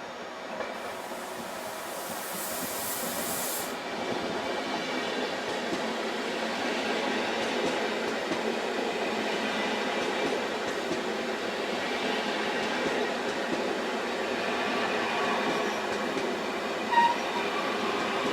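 A train running on rails, its noise building slightly over the first few seconds, with a high hiss in the first few seconds and a brief sharp sound near the end.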